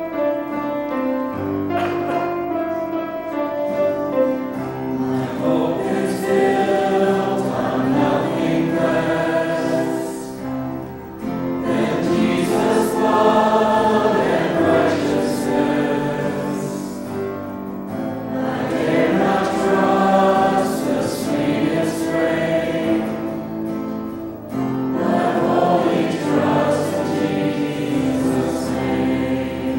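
Teenage worship team singing a worship song into handheld microphones over sustained instrumental accompaniment.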